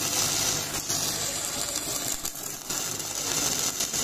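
Stick (MMA) welding arc from a Victor MMA-200 DC inverter welder burning a steel electrode at about 187 amps: a steady, dense crackling sizzle with spatter pops.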